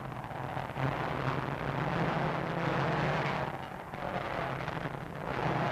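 Racing motorcycle engines running flat out at well over 100 mph, a steady low drone under a dense noisy rasp. The sound grows louder about a second in, dips a little before four seconds and swells again near the end as bikes pass.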